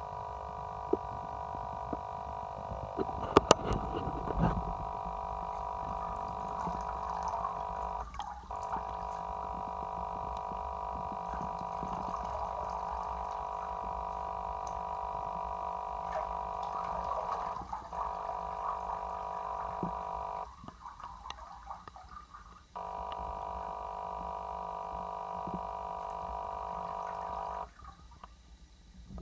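Water running from a tap into a bathtub and onto a shoe, with a steady high whine over the flow that cuts out briefly a few times. A few sharp knocks about three to four seconds in.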